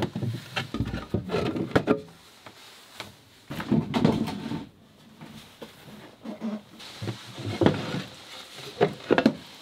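Wooden cabin floorboards and access panels of a boat being lifted up and set aside, with a few irregular wooden knocks and clatters.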